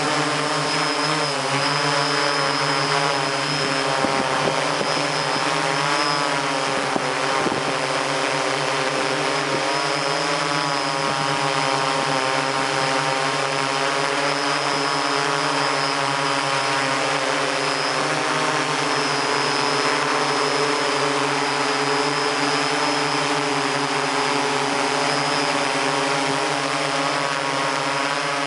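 MikroKopter hexacopter's electric motors and propellers running in flight, heard close up from the camera on board: a steady multi-toned whine whose pitch wavers up and down, with a thin high steady tone above it.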